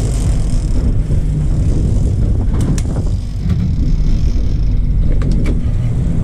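Boat engine running steadily under way, with water rushing in the wake behind the stern. A few faint clicks cut in about halfway through and again near the end.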